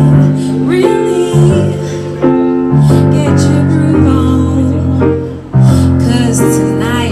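Live female singing over an electric keyboard playing held piano chords.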